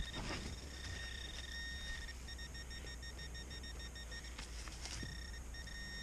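Metal detector's high electronic tone at one fixed pitch, sounding steadily, then breaking into rapid even pulses of about six a second in the middle before steadying again, over a target that gives a choppy high reading. A brief rustle comes just before the tone resumes.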